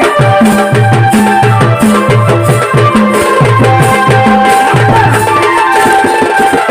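Instrumental passage of a jhumur folk song: a drum keeps a steady beat of about two strokes a second under a held melody line.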